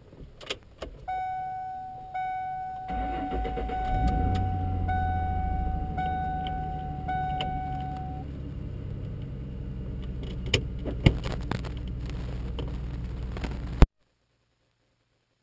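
A car being started from inside the cabin. A few clicks of the keys are followed by a steady dashboard warning buzzer that breaks off and resumes, then about three seconds in the engine starts, runs up and settles to a steady idle. The buzzer stops partway through, two sharp knocks come near the end, and then all sound cuts off abruptly.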